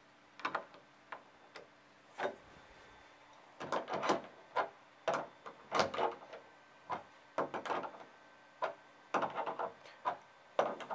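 Crescent (adjustable) wrench clicking and scraping on a small nut as it is repeatedly set on and turned, snugging the nut down onto an elevator bolt. A string of short, irregular metal clicks, sparse at first and closer together after a few seconds.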